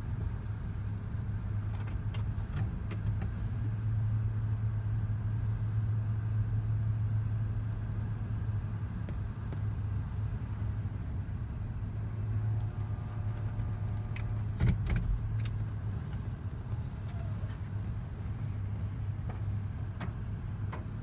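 A car's engine running at low speed, heard from inside the cabin as a steady low hum while the car creeps forward and stops. There are scattered clicks, a faint steady tone for about a second and a half around 12 seconds in, and a single thump about 15 seconds in.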